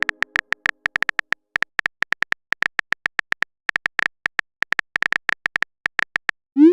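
Phone keyboard typing sound effect: rapid key clicks in irregular runs with short pauses, about ten a second. Near the end a short rising swoop, the sound of a text message being sent.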